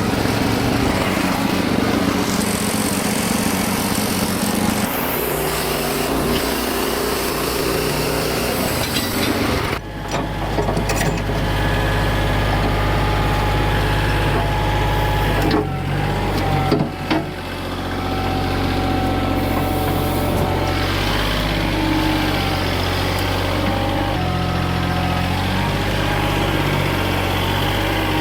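LX55 portable sawmill's engine running under load. About ten seconds in, the sound changes to a steadier, deeper running note, with a few knocks a little past the middle.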